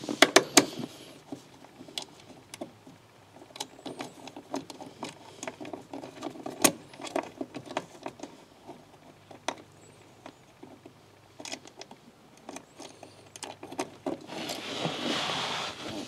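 Hand screwdriver driving a screw into an aluminium e-brake pedal cover: irregular small clicks and ticks of the tool and metal, with a brief rustle near the end.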